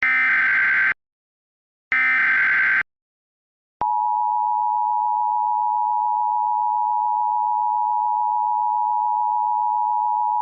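The last two of three Emergency Alert System SAME header data bursts, each about a second of harsh digital screech. About a second after them comes the EAS two-tone attention signal (853 and 960 Hz), a steady, piercing dual tone.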